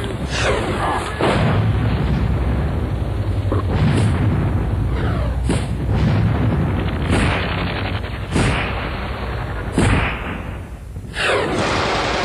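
Gunfire and booms at irregular intervals, roughly one every second or two, over a steady low rumble. Two of the reports, about eight and ten seconds in, are louder than the rest.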